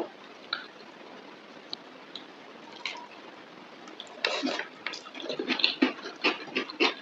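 Close-up wet eating sounds of mutton curry and rice: chewing and lip smacks, a few isolated clicks at first, then a dense run of quick smacking from about four seconds in.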